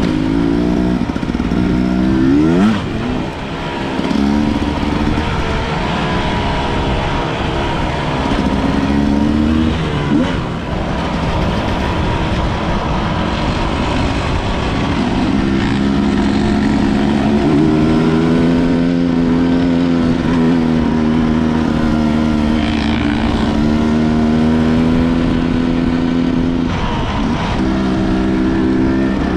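Enduro motorcycle engine running under way, its pitch rising and falling with the throttle for the first ten seconds or so, then held fairly steady before a brief dip near the end.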